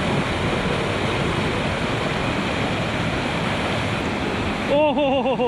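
Glacier-fed mountain stream rushing over rocks, a steady loud rush of whitewater. Near the end a man's voice breaks in with a quick, quavering cry, a reaction to the ice-cold water.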